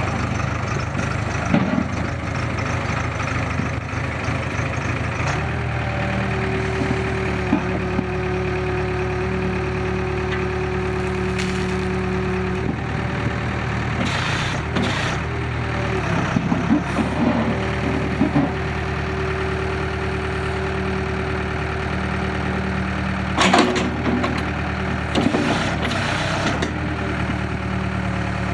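Case 580 Super K backhoe's diesel engine running steadily. A higher steady whine comes in twice for several seconds while the engine note shifts. A few sharp clanks are heard, the loudest about two-thirds of the way through.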